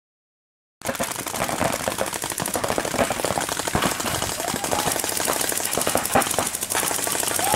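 Paintball markers firing rapid strings of shots, several guns at once, in a dense continuous rattle that starts suddenly about a second in.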